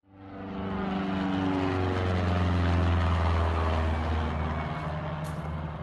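Light propeller plane, an Ercoupe, flying overhead: a steady engine drone that fades in, its pitch falling slowly as it passes.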